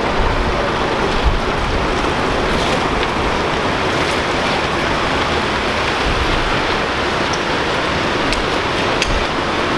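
Taxis moving along a wet street: a steady hiss of tyres on wet tarmac, with a low rumble underneath.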